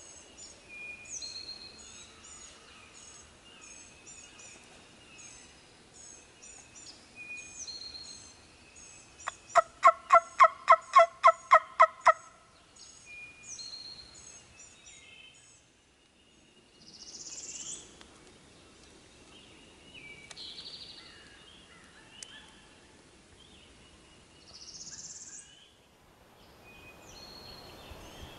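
A run of about eleven turkey hen yelps, about four a second, made on a hand-made wing bone turkey call, starting about nine seconds in and much louder than anything else. Songbirds chirp high and thin throughout.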